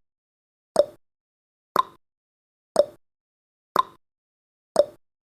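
Countdown timer's tick-tock clock sound effect: five sharp ticks, one a second, alternating lower and higher in pitch, counting down the timer's last seconds.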